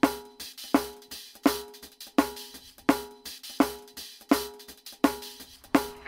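Music: a steady drum beat, one strong hit about every three-quarters of a second with lighter cymbal ticks between, over a held chord.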